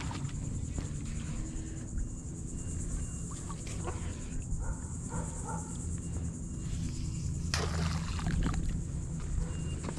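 Wind rumbling on the microphone, and a crab net splashing into the water about seven and a half seconds in.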